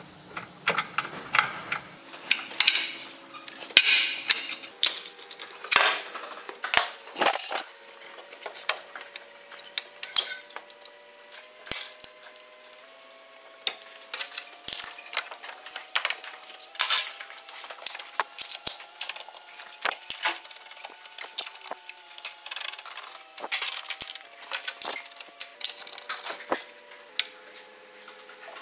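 Irregular sharp metallic clinks and knocks of hand tools against steel suspension parts, with a faint slow tune of held notes behind.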